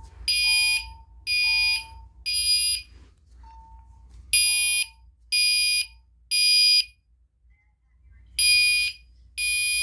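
Gentex Commander 3 fire alarm horn, with tape over it, sounding the temporal-three evacuation pattern. It gives three half-second blasts, a pause, three more blasts, another pause, then two more near the end.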